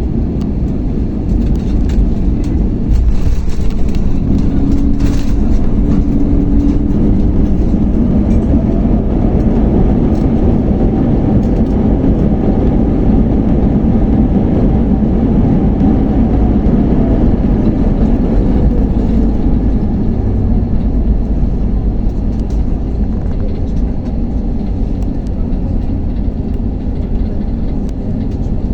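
Cabin noise of an Airbus A321 on its landing roll: a heavy, steady rumble from the runway and airframe, with the engines' whine rising and falling again over about ten seconds in the middle of the run.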